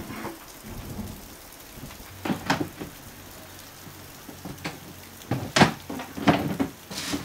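Steady rain falling during a thunderstorm, with several sharp knocks and rattles as things on a cabinet are handled in the dark, the loudest a little past the middle.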